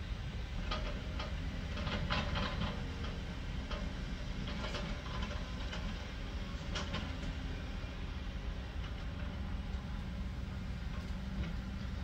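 Heavy earthmoving machines working, a crawler bulldozer and a tracked excavator: a steady low diesel rumble with scattered knocks and clatter of rock being pushed and placed, busiest about two seconds in and again near five and seven seconds.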